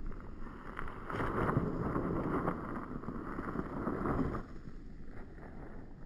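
Wind buffeting the microphone: a gust swells about a second in and dies down after about four and a half seconds.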